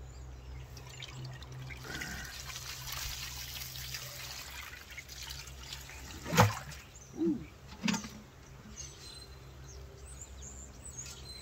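Water pouring out of a stainless steel stockpot onto grass, then a sharp knock about six seconds in and two softer thumps, as the pot is turned over and knocked to free the cake of rendered beeswax.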